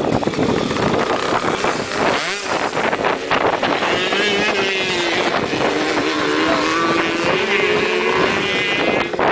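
Wind buffeting the microphone, then a small two-stroke moped-engined cross bike revving up as it pulls away: its engine note climbs about two seconds in and then holds a steady, wavering buzz as it rides off.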